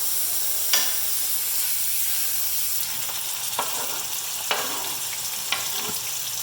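Food sizzling as it fries, a steady hiss broken by a few sharp pops.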